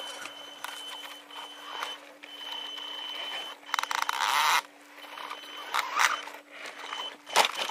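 Electric motors and gears of RC crawler trucks whining steadily as they climb a dirt bank. A burst of tyres churning dirt comes about four seconds in, and a few sharp knocks follow in the second half.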